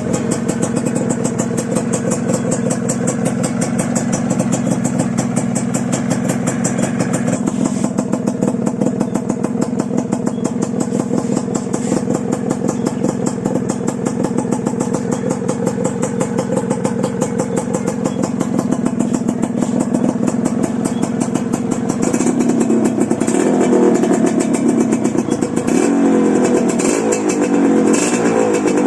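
Two-stroke motorcycle engine running through a Yamaha RXZ expansion-chamber exhaust with an aftermarket AHM silencer: a steady, rapid idle, then from about three-quarters of the way in the throttle is blipped several times, the pitch rising and falling with each rev.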